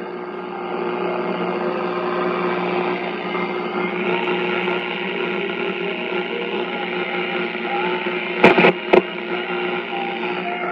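Static hiss from the loudspeaker of a Philco 40-120 tube radio being tuned between stations, with a steady hum and faint whistles that shift in pitch. Two sharp clicks come about eight and a half seconds in.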